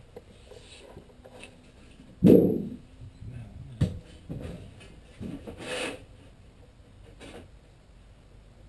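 Thin aluminium sheet and a door piece being handled on a workbench: a loud thump about two seconds in, a sharp knock near four seconds, a scraping rub near six seconds, and lighter rubbing in between.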